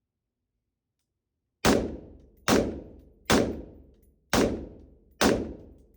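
Rifle firing five single shots in steady succession, a little under a second apart, each crack trailing off in a short echo.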